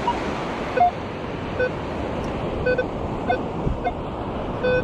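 Minelab Equinox metal detector sounding short target beeps, about six spread over a few seconds, mostly at one pitch with one higher, over the steady hiss of surf and wind.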